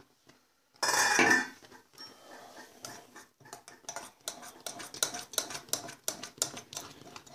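A loud metal clatter about a second in, then a spoon scraping and clinking against a stainless steel saucepan over and over as it stirs thick cooked oatmeal.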